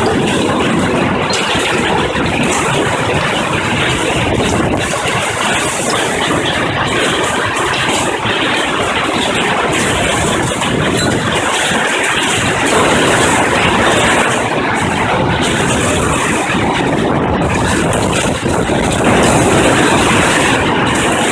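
Hail and heavy rain coming down hard, a loud, steady, dense noise that swells slightly twice.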